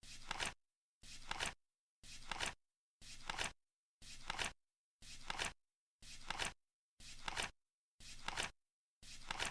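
Flip clock turning once every second, about ten times: each turn is a short flapping rustle that ends in sharp clicks, with silence between.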